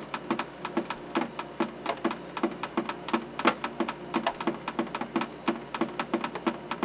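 Film projector sound effect: a rapid mechanical clatter of clicks over a regular knock about two to three times a second, with a steady high hiss.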